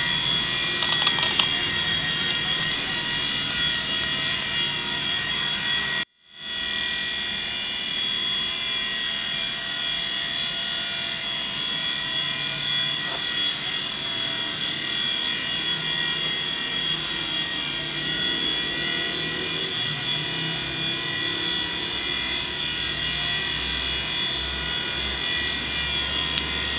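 WL Toys V911 micro helicopter in flight: its small electric motors and rotor give a steady high-pitched whine. The sound breaks off for a moment about six seconds in, then returns.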